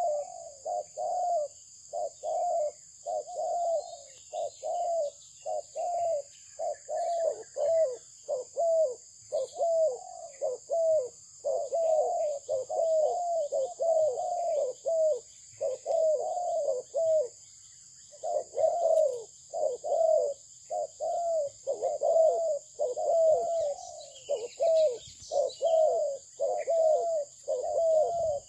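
Dove cooing continuously in long series of short, quick notes, each dropping slightly in pitch, with one brief pause about two-thirds of the way in.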